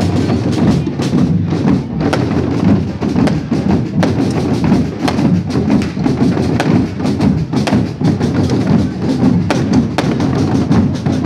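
Loud music with drums and percussion, with frequent sharp knocks.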